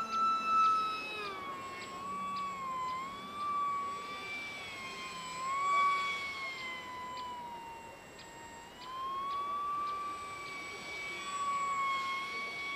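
Electric motor of a radio-controlled Eurofighter model jet whining at a high pitch that wavers up and down with the throttle. The pitch sags around eight seconds in, then climbs again.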